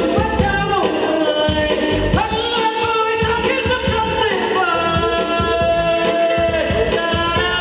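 A man singing into a handheld microphone over a backing track with a steady beat, holding long, sliding notes.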